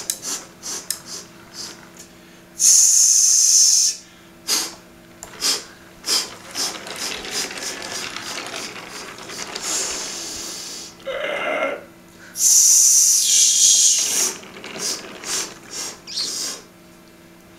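Model train running on its track: a stream of irregular clicks and rattles from the wheels and rails over a faint steady hum, broken twice by a loud hiss lasting about a second and a half, about three seconds in and again about thirteen seconds in.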